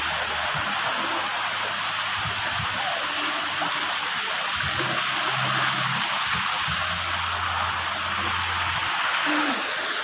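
Steady rush of running water from pool water features, with a child splashing in the pool. The rush grows louder near the end as spray from a splash-pad fountain falls close by.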